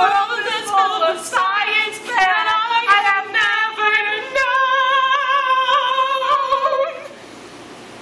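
Young women singing a cappella, their notes wavering with vibrato, ending on one long held note that stops about seven seconds in.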